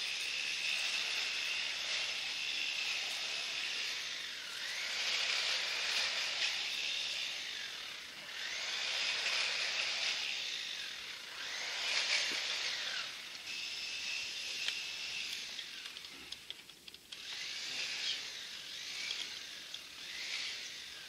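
Insects singing outdoors: a high, steady, buzzing drone that swells and fades in stretches of a few seconds. A few light clicks come near the end.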